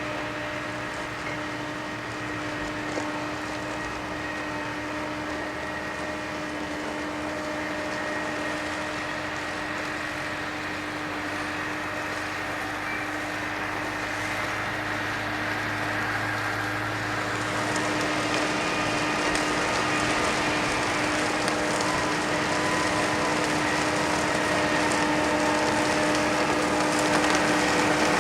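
Dewulf Kwatro self-propelled potato harvester running steadily, a constant mechanical whine and hum over a rough rattling noise, growing gradually louder toward the end.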